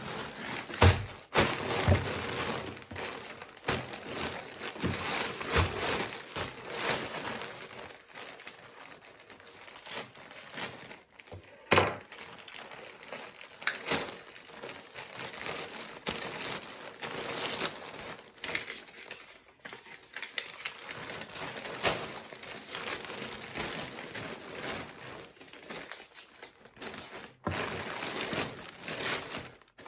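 Packaging crinkling and rustling as it is handled and unwrapped, with irregular clicks and a few sharper knocks.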